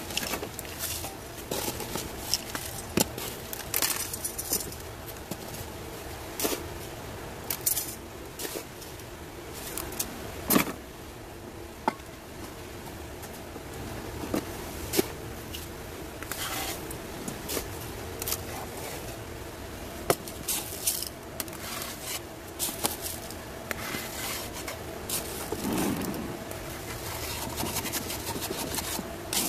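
Gritty potting mix and small stones rattling and scraping against a glazed ceramic pot while a succulent is repotted. Scattered irregular clicks and taps come from hands and tools handling the pot.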